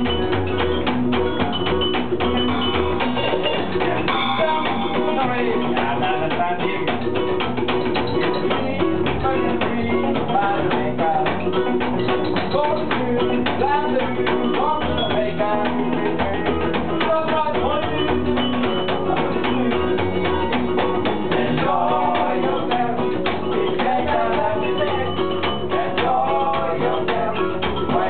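Small live band playing an upbeat ska cover: strummed ukulele and electric guitar over a plucked upright double bass, with hand percussion keeping a steady beat.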